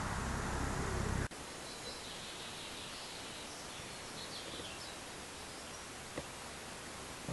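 Outdoor ambience with a steady low rumble that cuts off abruptly about a second in. It gives way to a quieter steady hiss with faint, high chirps of distant birds and a single soft click near the end.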